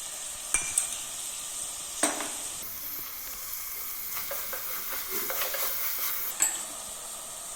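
Diced onion and capsicum sizzling in oil in a pan with tomato sauce just added, stirred with a spoon that scrapes the pan and knocks against it twice near the start. The sizzle grows louder and hissier for a few seconds in the middle.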